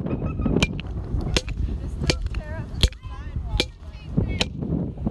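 Hammer striking a small streetlight fixture over and over, sharp hard knocks at a steady pace of about one blow every three-quarters of a second.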